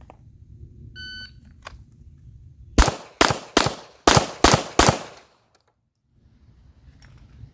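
A shot timer beeps once, then a handgun fires six quick shots, three on each of two targets. The last shot comes about 3.8 seconds after the beep.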